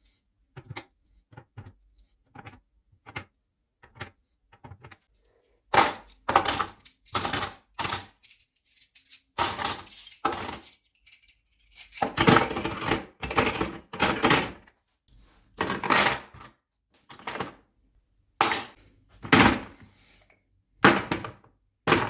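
Hard plastic toolbox and storage case being handled: a few faint clicks, then from about six seconds in a run of loud, irregular plastic knocks and clatters as the case is fitted in and moved about.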